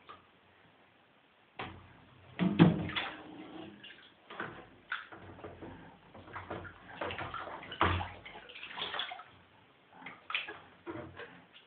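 Water splashing and sloshing in a plastic baby bath as a toddler plays, with irregular knocks of a plastic bowl against the tub, starting about a second and a half in.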